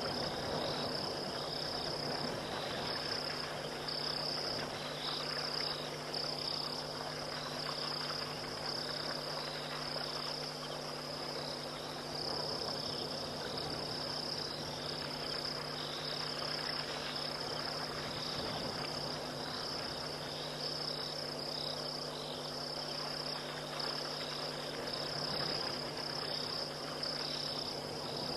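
Night chorus of crickets and other insects: a continuous high-pitched trilling with a second, slightly lower pulsing chirp, over a low steady drone.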